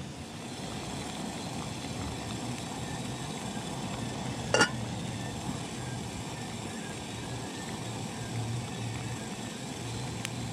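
Gas canister backpacking stove burning steadily under a pot of water at a rolling boil. A single sharp metallic clink comes about four and a half seconds in.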